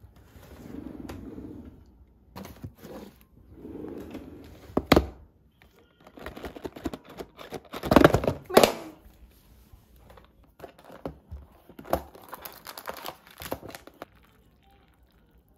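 Cardboard tea box and paper tea sachet being handled on a countertop: rustling and crinkling with knocks and taps. Soft swishes come first, the clatter is loudest about eight seconds in, and it dies down near the end.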